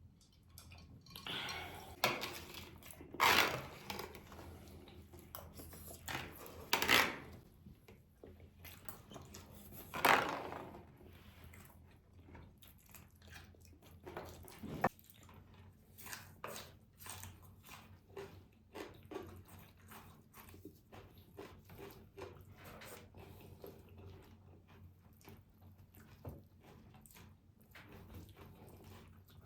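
Close-miked eating of meatballs and rice: wet chewing with many small mouth clicks and smacks. A few louder, longer bursts stand out in the first ten seconds or so, likely cutlery on the plate or bites.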